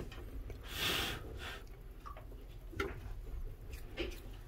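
A short, loud breath close to the microphone about a second in, then a few faint clicks, over a low steady hum.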